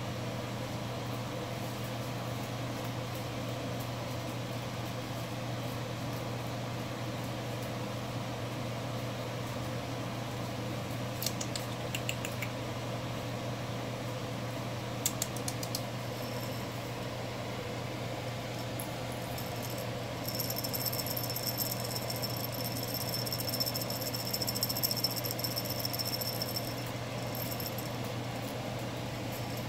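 Steady low hum of room tone, with a few faint ticks partway through. A high, fast rattle or jingle runs for several seconds in the latter part.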